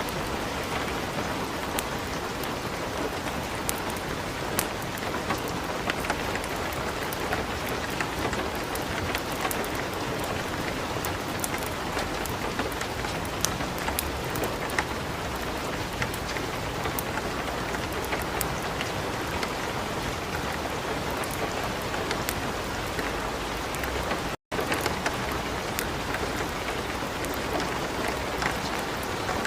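Light rain falling together with a wood fire burning in a fireplace: a steady hiss dotted with frequent small, sharp crackles. The sound drops out for a split second about 24 seconds in.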